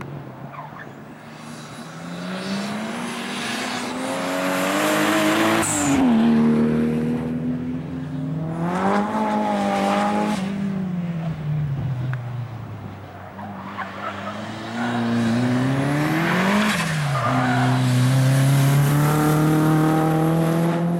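Race-prepared sports cars accelerating hard on a circuit, the engine pitch climbing through each gear and dropping sharply at the shifts about 6, 10 and 16 seconds in, with tyres squealing. The cars are a white Toyota Supra and then a yellow Nissan S13.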